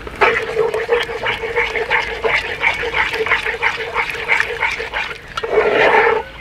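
A spatula stirring a simmering sauce in a cast-iron Dutch oven, scraping the pot in quick, rhythmic strokes. There is a louder scrape near the end.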